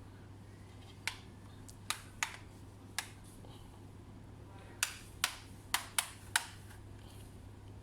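Irregular sharp clicks, about nine of them, from laptop parts and tools being handled as the laptop is taken apart: four spread over the first three seconds, then five in quicker succession near the middle, over a faint steady hum.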